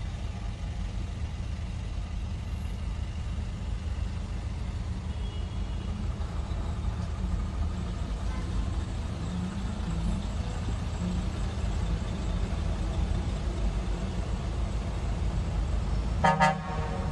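Traffic crawling through a flooded underpass: a steady low rumble of engines and tyres in water, with a short car-horn toot near the end.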